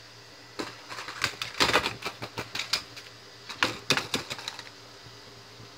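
Skateboard clattering on brick pavers: an irregular run of sharp clacks and knocks from the board and its wheels hitting and rolling over the bricks. It stops about four seconds in.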